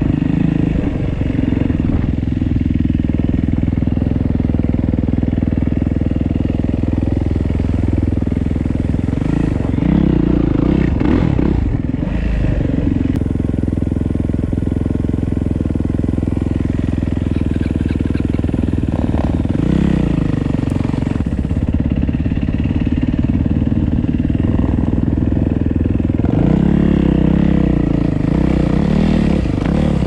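Motorcycle engine running under way, its note rising and falling with the throttle a few times: around ten seconds in, around twenty seconds in, and again near the end.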